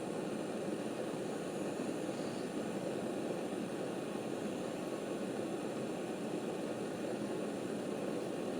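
Blowtorch flame hissing steadily as it heats the aluminium outer tube of a dirt-bike fork, to expand it and free the oil seal and bushings.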